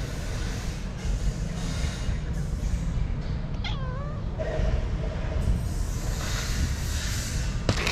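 A street cat gives one short meow about four seconds in, its pitch curving up and down, over a steady low rumble.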